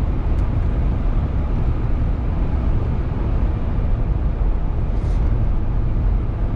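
Steady road and wind noise heard inside the cabin of a 2018 Jeep Wrangler JL Rubicon cruising at about 60 mph on BFGoodrich All-Terrain tyres. There is little tyre hum; it is mostly the typical wind noise of a Jeep, a low, even rush.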